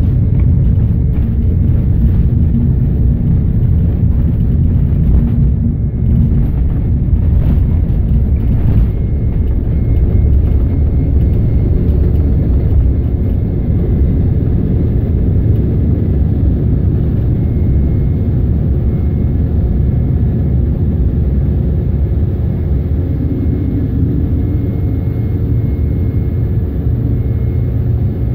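Airliner's engines at takeoff power together with the rumble of the takeoff roll, heard inside the cabin: a loud, steady low rumble as the plane speeds down the runway and lifts off.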